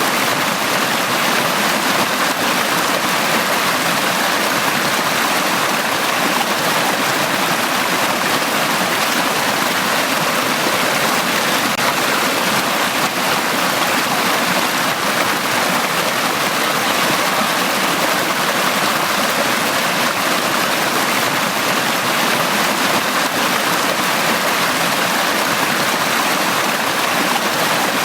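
Valley stream water flowing, a steady even rushing without breaks or changes.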